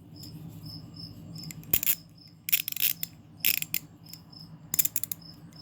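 Proto 1/4-inch drive ratchet being worked by hand: four short runs of fine, rapid pawl clicking about a second apart. A faint high chirp repeats about three times a second in the background.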